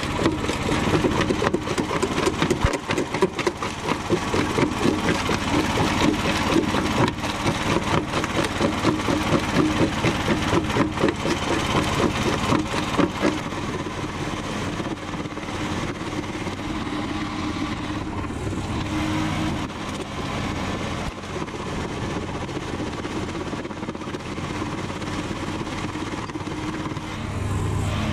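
Homemade jaw crusher running and crushing chunks of concrete, with a rapid, pulsing crunch for the first half. From about halfway it runs steadier and a little quieter.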